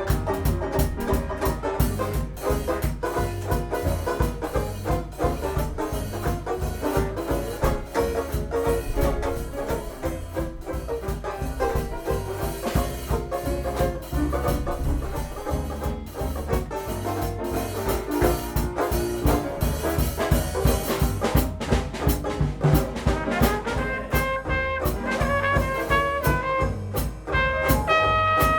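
Live Dixieland jazz band of trumpet, piano, banjo and drums playing with a steady beat. The trumpet comes to the fore with clear held notes in the last few seconds.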